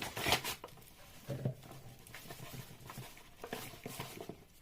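Self-raising flour being spooned into a measuring cup: faint rustling with a few light taps and clicks, the sharpest near the start.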